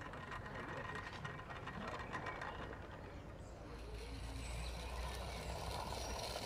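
Small garden-railway model locomotive running along the track: a faint mechanical whirring and clicking of its running gear, over a low rumble.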